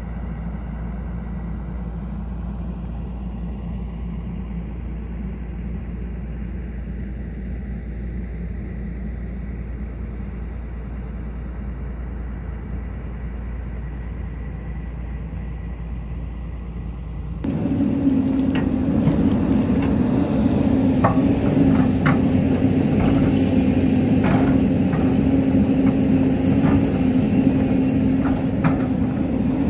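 Hyundai crawler excavator's diesel engine running steadily, quieter at first. About two-thirds of the way in, the sound jumps to close range: a louder engine hum with scattered knocks as the bucket digs and scrapes through soil and stones.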